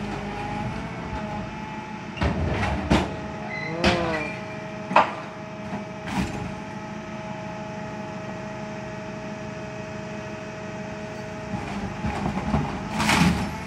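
Rear-loading garbage truck running its compactor: a steady hum and whine from the packing mechanism, with knocks and clunks as bags are thrown into the hopper and crushed. The whine stops near the end, followed by a few louder clattering knocks.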